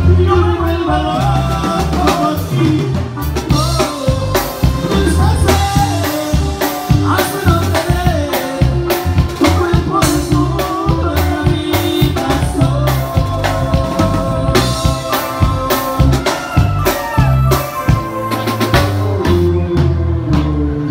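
A live Tierra Caliente band playing through a stage PA: a male singer's voice over electric bass, keyboard and a drum kit keeping a steady beat.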